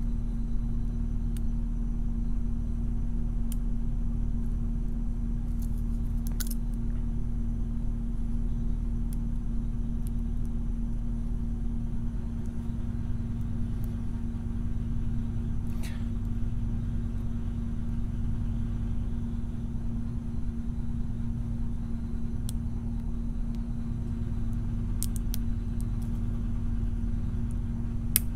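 A steady low hum, with a few faint metallic clicks now and then as a lock pick works the wafers of a brass wafer-lock mortise cylinder held under tension.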